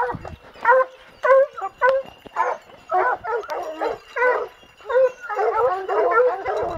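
A pack of Plott hounds barking steadily at the base of a tree, short barks about every half second that crowd together and overlap near the end as several dogs bark at once. This is the bay of hounds that have treed a bear.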